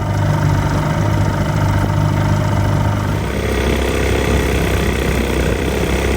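25 hp Johnson two-stroke outboard motor running steadily; about three seconds in its note drops to a lower, slower drone as it is throttled back.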